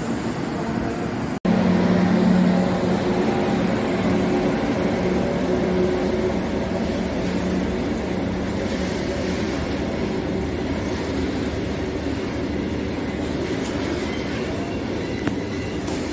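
A passenger train running past on a far track, then, after a brief break about a second and a half in, a goods train's covered wagons rolling past close by with a steady, louder rumble of wheels on the rails.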